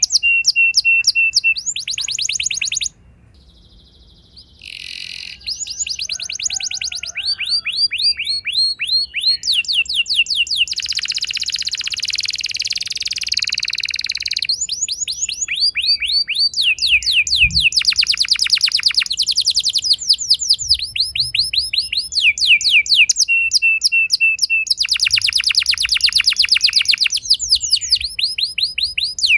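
Domestic canary singing long rolled trills: fast runs of repeated sweeping notes in phrase after phrase, with a short quieter break about three seconds in.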